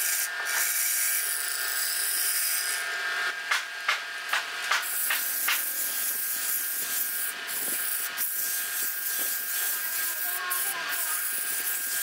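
Wood lathe running with a steady motor whine while a gouge cuts the inside of a spinning wooden cup in short scraping strokes during the first half. After that the inside is smoothed by hand against the spinning wood, an even rubbing hiss over the whine.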